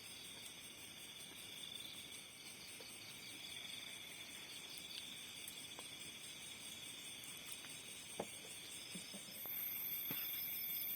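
A chorus of insects chirping steadily with high, pulsing trills. About three-quarters of the way in a higher, louder trill joins, and a few faint knocks sound near the end.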